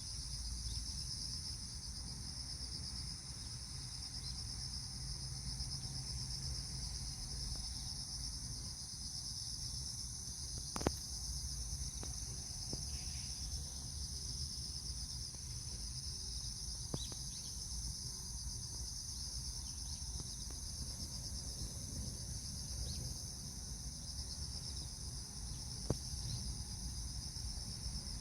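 A steady chorus of crickets or similar insects chirring high and pulsing without a break, over a low rumble. Three sharp clicks stand out, at about 11, 17 and 26 seconds in.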